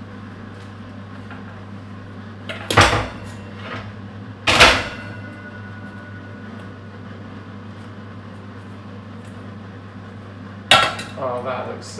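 Kitchenware knocking and clattering as it is handled: a hard knock about three seconds in, a louder one a couple of seconds later, and another near the end, over a steady low hum.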